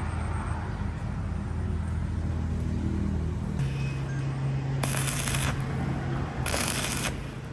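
A motor's steady low hum that shifts to a different pitch about halfway through, with two short bursts of hissing noise near the end.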